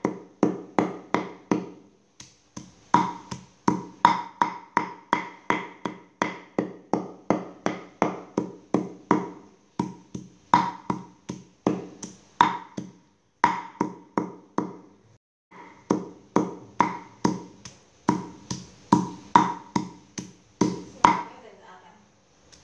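Cleaver chopping pork on a thick round wooden chopping board: steady, rhythmic chops about three a second, each a sharp knock with a short ring. There are brief pauses about two seconds in, around the middle, and near the end.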